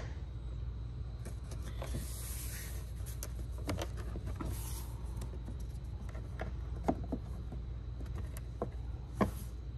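Click-lock floor tiles being slid and pressed into place by hand: scattered light clicks and taps as the edges meet and seat, with a couple of brief soft scrapes. The loudest tap comes near the end. A steady low hum runs underneath.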